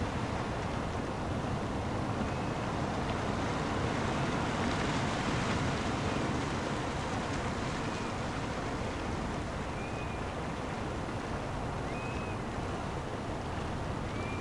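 Small ocean waves washing in over rocks in shallow water: a steady surf wash that swells a little about four to six seconds in. Faint short high chirps come every few seconds.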